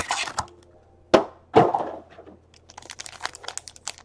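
Hands opening a cardboard trading-card box: two loud, sharp cracks a little over a second in as the box is pulled open, then rapid crinkling as the shiny pack inside is handled.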